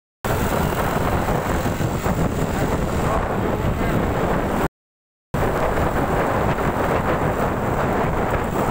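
Wind buffeting the microphone of a phone carried on a moving motor scooter, with road and engine noise beneath it. The sound cuts out to silence twice, briefly: once right at the start and again about five seconds in.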